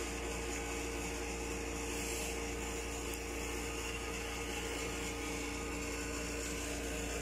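Steady, unchanging hum and whir of a small electric motor running, with a constant low drone under it.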